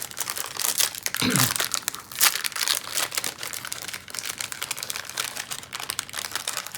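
Snack wrapper being crinkled and torn open, a dense run of crackling.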